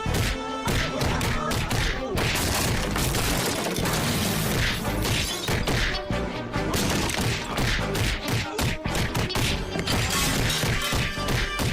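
Dramatic action music over cartoon fight sound effects: repeated crashes, breaking glass and thuds of blows landing.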